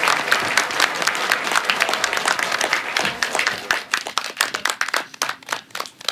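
Audience applauding, a dense patter of many hands that thins out and dies away over the last two seconds.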